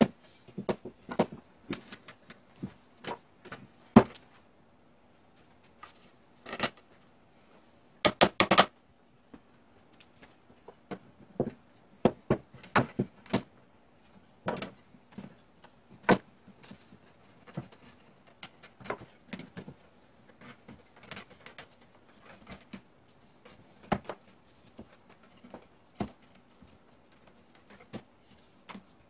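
Wooden slats and frame pieces of a rocking chair knocking and clacking together as they are fitted by hand, in irregular sharp knocks with a quick run of several clacks about eight seconds in.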